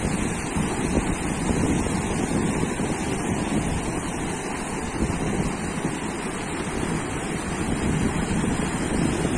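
Sea surf washing onto a beach in a steady wash of noise, with wind buffeting the microphone.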